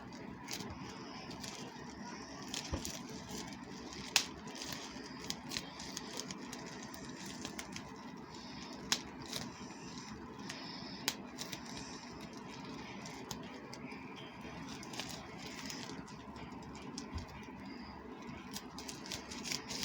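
A small plastic toy and its packaging being handled: scattered light clicks and crackles throughout, with a few sharper clicks standing out.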